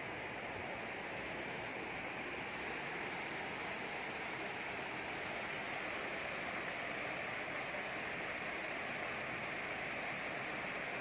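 Mountain river water rushing and rippling steadily, a constant even noise.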